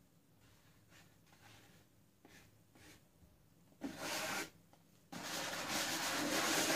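An upturned metal dog bowl being slid across a canvas and the plastic sheeting around it, pulling the poured paint out with it. Soft scuffs, then a short scrape about four seconds in, and steady rubbing from about five seconds on.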